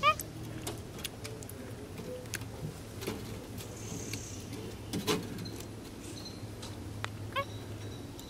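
Capuchin monkey giving short, high-pitched squeaks: one right at the start and another about seven seconds in. Scattered light clicks and knocks run between them, the loudest about five seconds in.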